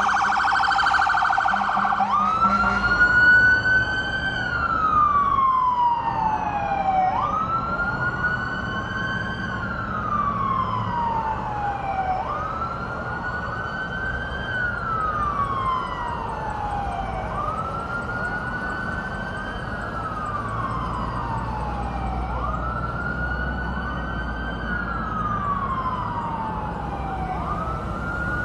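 Emergency-vehicle siren going by: a fast yelp for about the first two seconds, then a slow wail that rises sharply and falls away over about three seconds, repeating about every five seconds.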